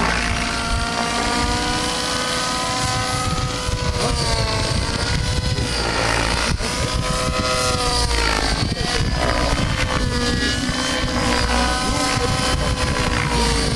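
A 90-class T-Rex radio-controlled helicopter in flight, its rotor and drivetrain whine rising and falling in pitch again and again as it manoeuvres.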